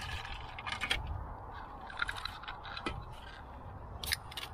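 Ice and drink cans clinking and scraping as drinks are dug out of a beverage cart's ice bin, a few sharp clicks spread through.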